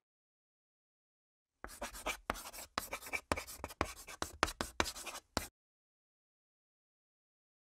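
Chalk writing on a chalkboard: a quick run of short scratching strokes, starting about a second and a half in and stopping abruptly after about four seconds.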